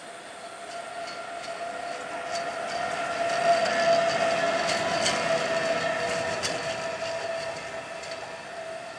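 A VR electric locomotive running light passes close by, growing louder to a peak about four seconds in and then fading as it moves away. It gives a steady whine, with sharp clicks from the wheels on the rails as it goes by.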